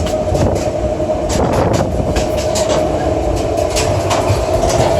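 An old Myanmar Rail passenger train running, heard from inside a carriage: a steady rumble with frequent irregular clacks and rattles.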